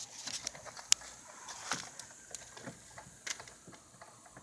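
A few scattered light clicks and knocks of a car's plastic door panel being handled and pressed into place on the door, the sharpest click about a second in.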